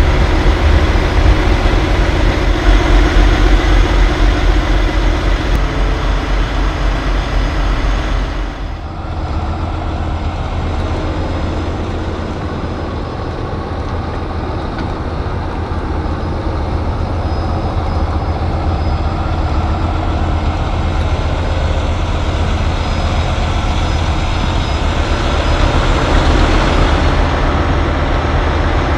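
Heavy diesel semi-truck engines idling steadily with a deep rumble. About nine seconds in the sound cuts abruptly to another big rig's diesel running, a little quieter and just as steady, growing slightly louder near the end.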